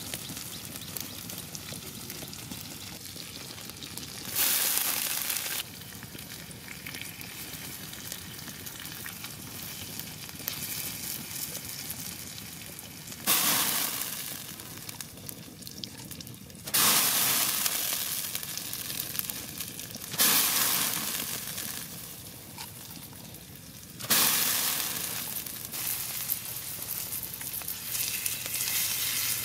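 Pig's liver sizzling on a fire-heated rock: a steady frying hiss that suddenly swells loud five times, each swell fading away over a second or few.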